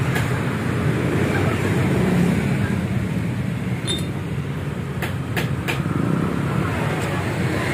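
Steady low rumble of road traffic, with a few short metallic clicks about four to six seconds in as a stainless steel end cap is pressed onto the end of a motorcycle muffler.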